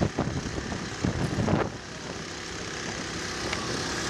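Burning brush and trees crackling and popping with irregular sharp snaps. After about two seconds this gives way to a steady engine drone with a faint low hum.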